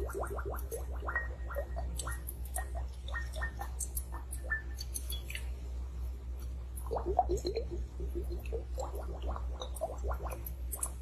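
Close-up gurgling and bubbling of liquid inside a glass globe as it is tilted and swirled: many quick small pops falling in pitch, with a denser run about seven seconds in.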